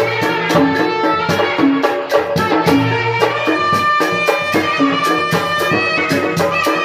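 Live tanji band music for a kuda renggong show: held melody notes over a quick, steady drumbeat.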